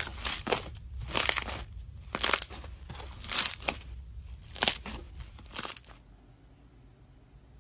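Thick white slime squeezed and pressed between two hands, giving a crackly, crunchy squish about once a second. The squishing stops about six seconds in.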